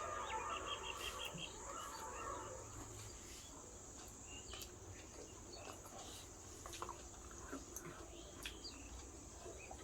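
Faint eating sounds: scattered soft clicks of chewing and lip smacks. A quick run of about eight bird chirps comes near the start, over a steady high insect drone.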